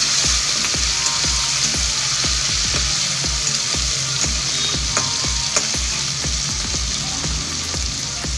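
Soaked chana dal, urad dal and mustard seeds sizzling in hot oil in a kadhai while a metal spatula stirs them. The hiss is steady, with two sharp crackles about five seconds in.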